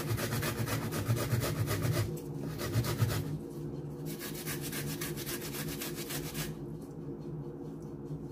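Fresh ginger being grated on a metal hand grater: quick, repeated rasping strokes, strongest in the first three seconds and growing fainter after about six and a half seconds.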